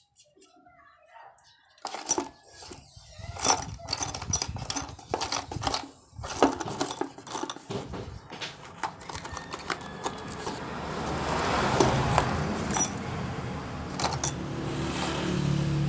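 Small metal engine parts clinking and knocking against each other as a Bajaj CT100 engine is put back together, in quick irregular clicks that start about two seconds in. A steady rushing noise builds up over the last few seconds.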